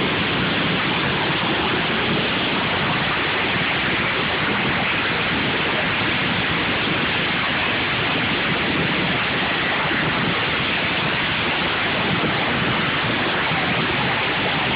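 Many lawn mower engines running at once in a derby heat, blended into a loud, steady wash of noise with no single engine standing out.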